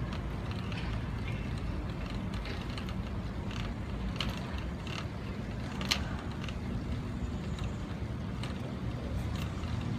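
CAF Urbos 3 streetcar rolling slowly along its track: a steady low rumble and hum, with scattered light clicks and creaks and one sharper click about six seconds in.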